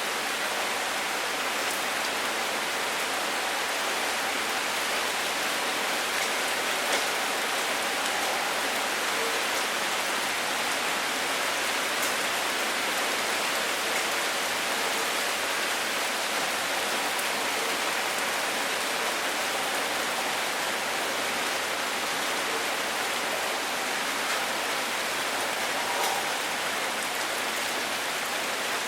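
Steady rain falling, a constant even hiss with a few separate drops ticking now and then.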